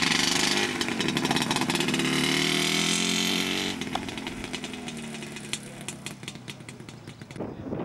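A small motorcycle engine revving close by. About three and a half seconds in the sound drops off and fades as the bike rides away.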